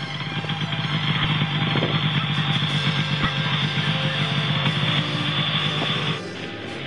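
Snowmobile engines running, getting louder over the first second, over background music; the engine sound cuts off abruptly about six seconds in.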